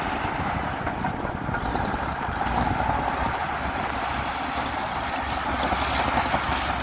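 Komatsu D60P bulldozer's diesel engine running steadily.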